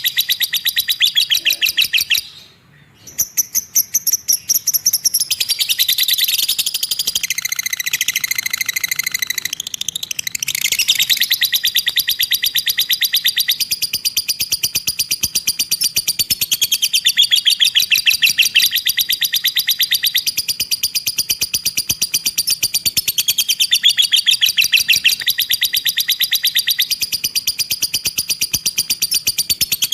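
Lovebird's 'ngekek': a long, fast chattering trill of rapidly repeated notes, broken by a short pause about two and a half seconds in and shifting pitch several times.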